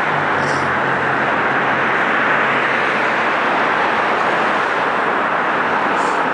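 Steady, loud rushing noise with a low hum underneath that fades out about three seconds in.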